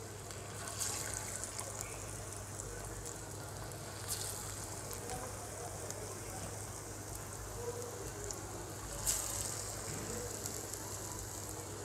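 Pieces of besan and potato batter frying in hot ghee in a shallow pan: a steady sizzle, with brief louder bursts about a second in, around four seconds and near nine seconds as more pieces go into the oil.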